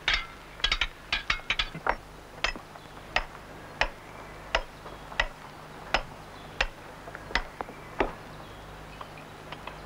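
Stonemason's hand dressing tool (the toothed 'Wolf') striking sandstone: sharp blows, several in quick succession in the first two seconds, then about one every two-thirds of a second. This is the fine dressing of a grindstone's surface. A steady low hum runs underneath.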